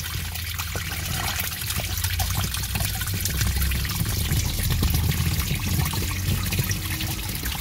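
Water spraying and trickling steadily into a turtle tank from an inlet that a turtle is trying to block; the flow's pressure keeps the water coming past it.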